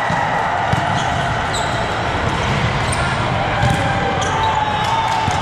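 Volleyball rally on an indoor court: the ball is struck a few times and sneakers squeak briefly on the court floor, over the steady din of the hall.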